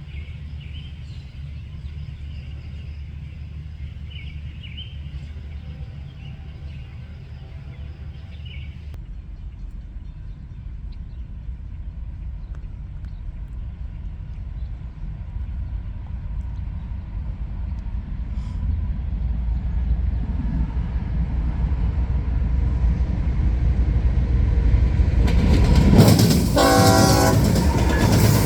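CSX diesel freight train approaching, its rumble growing steadily louder. Near the end the locomotive's air horn sounds loudly for a couple of seconds as the train arrives.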